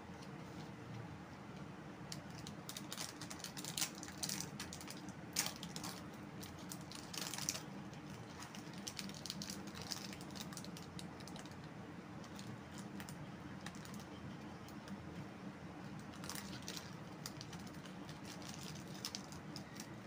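Plastic chocolate-bar wrapper crinkling and crackling as fingers tear it open and peel it back from the bar. The crackles come in irregular clusters, loudest a few seconds in, with another burst near the end.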